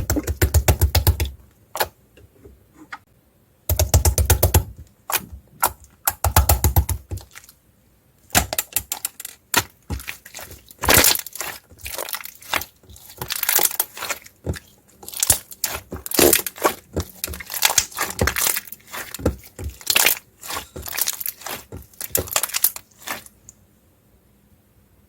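Clear slime with beads mixed in, squeezed and pressed by hand: rapid runs of crunchy clicking and crackling in bursts with short pauses between, stopping shortly before the end.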